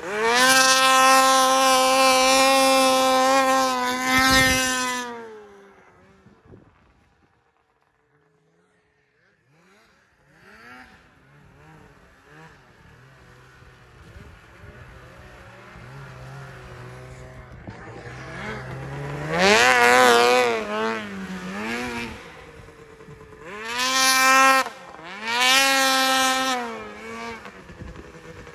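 Snowmobile engine at high revs, then fading away to near silence as the sled moves off. It comes back faintly and builds up into three loud full-throttle bursts near the end, the pitch wavering as the throttle is worked.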